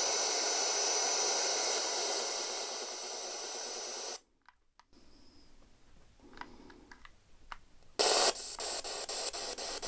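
Radio static from a scanning ghost box: a steady hiss with a thin high whistle cuts off suddenly about four seconds in. After a few faint clicks, the static returns loudly near the end, chopped by regular clicks about three or four times a second as the radio sweeps through channels.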